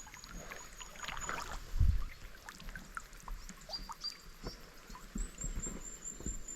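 Scattered light knocks and taps in a canoe, with one heavier thump about two seconds in. Faint high, thin repeated notes sound in the background.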